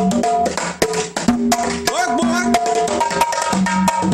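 Conga drums struck by hand in a quick rhythm, over held pitched notes of a melody.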